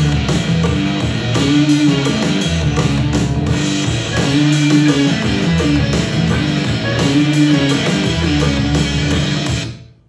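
Instrumental rock music with guitar and drums played through a Bose Portable Home Speaker at 62% volume. A short riff repeats every second or so, and the music drops away just before the end.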